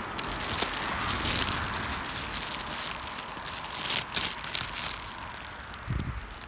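Irregular rustling and crackling in spells, with a short low thump near the end.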